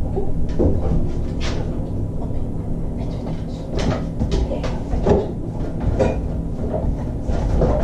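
Refrigerator door being tugged on and opened, with scattered knocks and rattles over a steady low hum.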